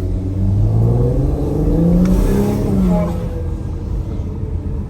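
Tuned Infiniti Q50's VR30 twin-turbo V6 accelerating, its pitch climbing for about two seconds and then dropping as the throttle is lifted, before settling to a low steady drone.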